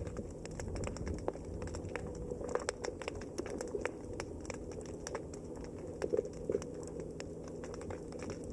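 Underwater reef ambience: a dense, irregular crackle of sharp clicks over a steady low rumble.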